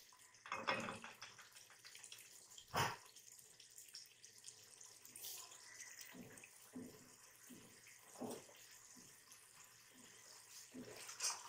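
Potatoes and mutton frying in masala in an open pressure cooker pot: faint sizzling and bubbling with a few soft pops. A spatula stirs at first, and there is one sharper knock about three seconds in.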